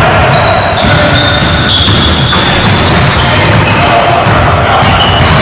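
Basketball game sounds on a hardwood gym court: a ball bouncing and sneakers squeaking in short high chirps as players run, echoing in the hall.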